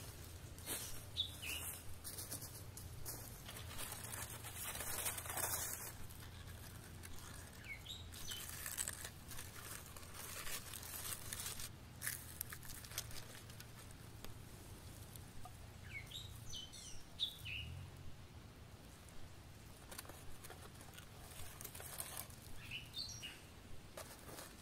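Footsteps crunching through dry fallen leaves, then crackling and tearing as a grilled chicken is pulled apart by hand. Small birds chirp now and then.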